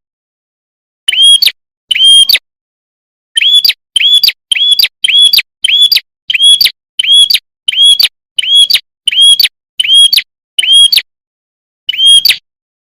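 Lure call of the prenjak kepala merah used by Indonesian bird trappers: the same short, loud chirp note, rising then holding, repeated about fourteen times. After a pause near the start the notes come in a quick run of about two a second, with dead silence between them.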